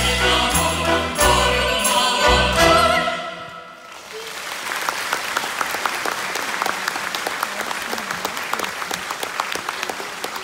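A choir singing a folk song over an accompaniment with a steady low beat, ending and fading out about three and a half seconds in. An audience then applauds steadily.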